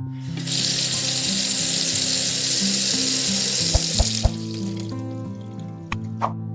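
Bathroom faucet running in a steady stream that stops abruptly a little past the midpoint, with a few short ticks around the cut-off and again near the end.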